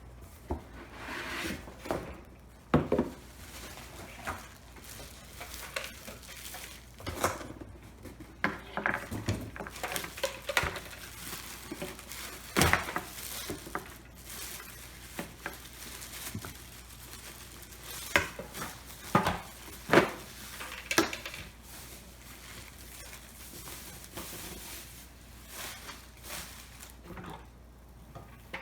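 Unpacking a humidifier: its plastic parts and the box packaging being lifted out, handled and set down, giving irregular clatter and knocks.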